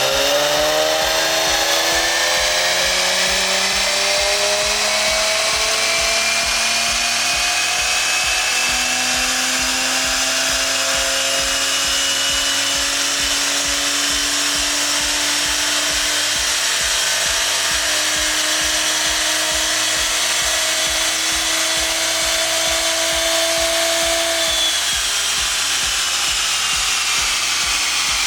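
Infiniti Q50's twin-turbo 3.0 L VR30 V6, breathing through a Stillen cat-back exhaust, making a full-throttle dyno pull. The engine note climbs steadily in pitch for about 24 seconds, then drops away near the end as the throttle is released.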